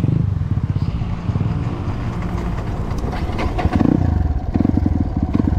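Small trail bike's engine through an aftermarket exhaust, ridden in first gear down a dirt slope: low revs with an uneven beat, a brief rev about three and a half seconds in, then an even low-rev beat.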